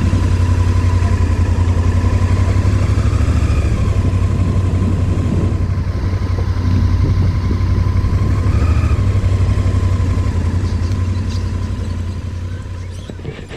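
Motorcycle engine running steadily with a deep low rumble, fading away near the end.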